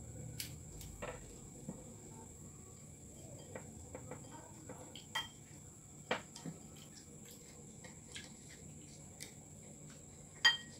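Scattered clinks and taps of spoons against ceramic bowls and plastic plates during a meal, with one sharp ringing clink near the end. A faint steady high-pitched whine runs underneath.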